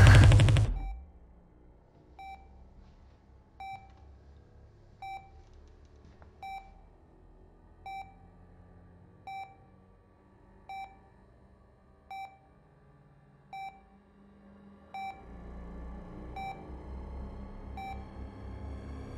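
Hospital bedside patient monitor beeping at a steady pace, one short beep about every second and a half. Music cuts off in the first second, and a low hum swells in beneath the beeps about fifteen seconds in, with a faint rising tone near the end.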